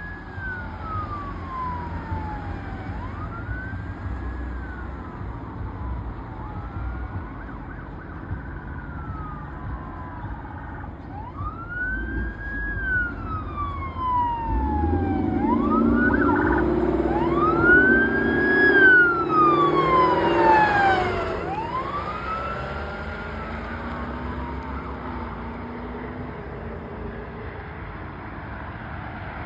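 Emergency vehicle sirens on a wail: slow rising and falling tones, one every three to four seconds. About halfway through a second siren overlaps the first, and engine noise swells as the two emergency response vehicles pass closest, loudest a little before twenty seconds in, then fading.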